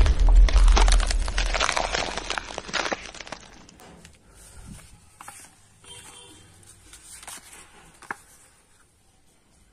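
The tail of an explosion sound effect, loud at first and dying away over about three seconds. Then faint rustling and crinkling of paper as torn flipbook pages are handled.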